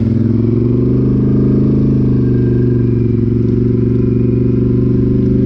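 Polaris Sportsman 850 ATV's parallel-twin engine running through an MBRP aftermarket exhaust. Its pitch rises a little in the first second, then holds at a steady speed.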